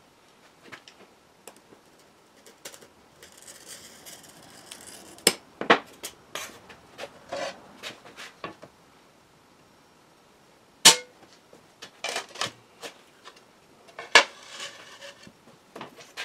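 Antique window glass being cut by hand: a glass cutter's wheel scores it along a straightedge with a short, high, gritty hiss, twice. In between come sharp clicks and two loud, briefly ringing cracks as the glass is snapped along the score and the pieces are handled on the board.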